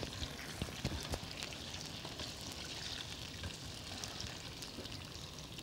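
Tofu frying in a wok of hot oil: a steady sizzle with scattered small crackles.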